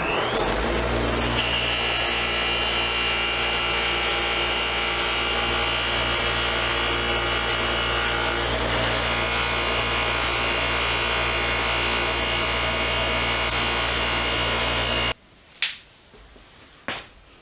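Electric abrasive finishing machine working a metal socket: the motor winds up to speed with a rising whine, then runs steadily under load. About fifteen seconds in it cuts off suddenly, followed by two short sharp clicks.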